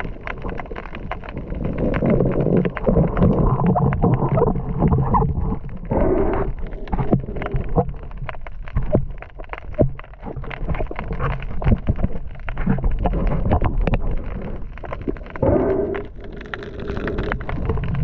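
Sea water heard underwater through a submerged action camera's housing: a muffled low rumble of moving water, with many sharp clicks and crackles and a few louder surges.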